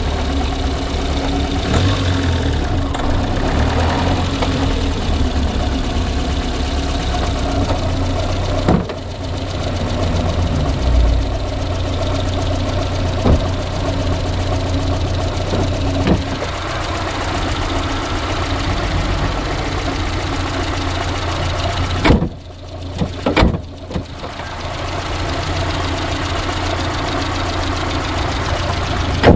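Car engine idling with a knock in it. A few sharp knocks or clicks stand out now and then. About three-quarters of the way through, the engine sound briefly drops around two louder thumps.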